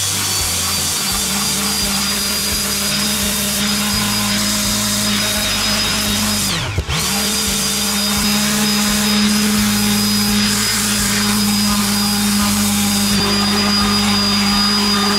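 Electric power tool motor running steadily at high speed with a constant hum and whine. About seven seconds in it briefly slows almost to a stop and spins straight back up.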